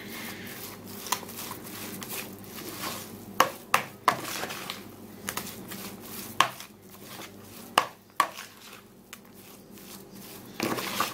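Metal spoon stirring and mashing a moist tuna köfte mixture in a plastic bowl: a steady soft scraping with irregular sharp knocks of the spoon against the bowl, a louder clatter near the end.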